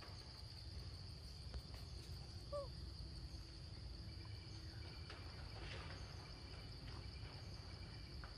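Steady high-pitched drone of forest insects, over a low rumble, with one brief squeak about two and a half seconds in.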